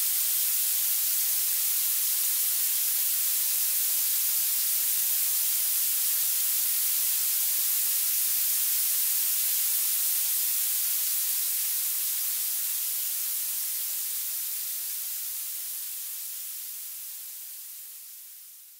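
Violet (purple) noise: a steady hiss weighted heavily toward the highest pitches, with almost no low end. It fades out gradually over the last several seconds.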